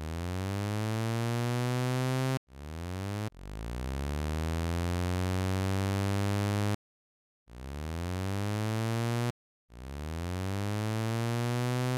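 Zebra2 software synthesizer playing five held notes, each a tone rich in overtones whose pitch sweeps up and then levels off, with short silent gaps between. The pitch sweep comes from the multi-stage envelope generator modulating the oscillator's tune, now timed in seconds.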